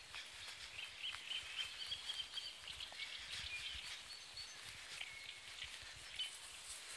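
Faint birdsong: scattered chirps and short trills over steady outdoor background noise.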